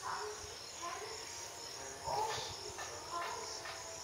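Insects chirring steadily in the vegetation, a high-pitched pulsing drone. A few short louder sounds break in over it, the loudest about two seconds in.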